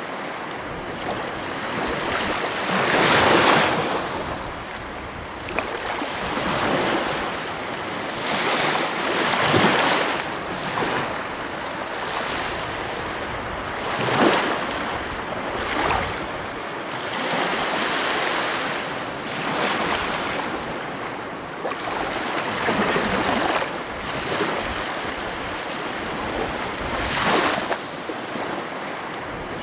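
Heavy ocean surf breaking on the coast: a continuous wash of water that swells and falls every few seconds as each wave crashes in.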